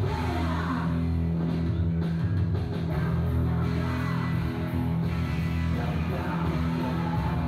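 Rock music with electric guitar playing continuously.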